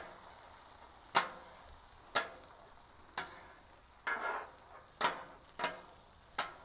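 Metal bench scraper striking and scraping across the steel griddle top about once a second as it pushes the edges of an egg omelet in to shape, over a faint sizzle of the egg cooking.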